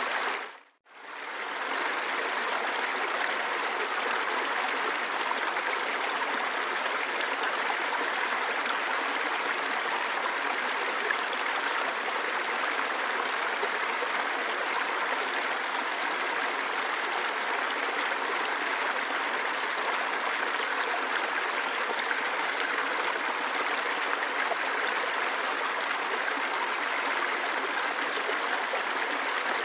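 Steady rushing of flowing water, an even unbroken wash of sound. It drops out briefly under a second in and fades back up within about a second.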